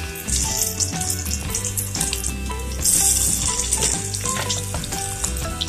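Flour-coated chicken pieces deep-frying in hot oil in a saucepan, the oil sizzling and bubbling steadily, swelling louder for a moment about three seconds in.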